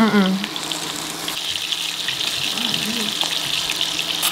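Meat sizzling steadily on the hot domed grill plate of a combination hot pot and grill.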